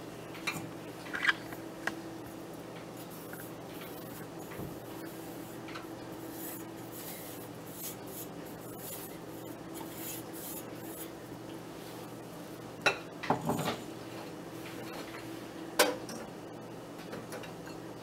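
Steel kitchenware being handled at a stovetop: a few light clinks and knocks near the start, a louder cluster about two-thirds of the way through and one more soon after, over a steady low hum.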